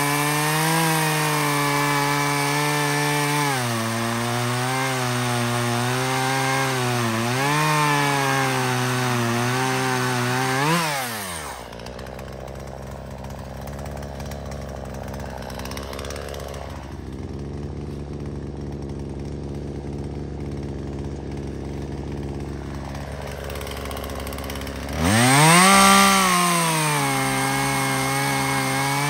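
Gas two-stroke chainsaw cutting wood, its engine pitch dipping as the chain is loaded in the cut. About ten seconds in it revs up briefly and drops to a quieter idle, then it is throttled back up to full speed near the end.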